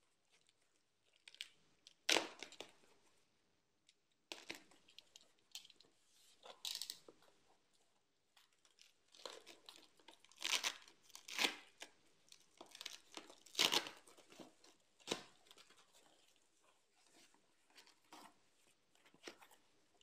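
Thin plastic bag being cut and torn open by hand, rustling and crinkling in irregular bursts, with a few louder rips about two seconds in and again in the middle.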